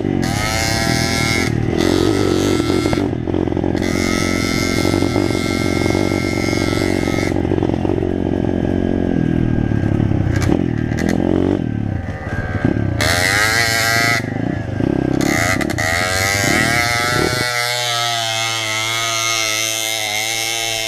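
A pit bike's engine revving hard on a rough dirt track, its pitch climbing and dropping repeatedly with throttle and gear changes. A few seconds before the end it settles to a steady idle as the bike stops.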